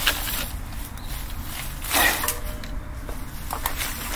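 Footsteps and scuffling on rough ground as a person scrambles up a steep bank, with a louder rustle about two seconds in.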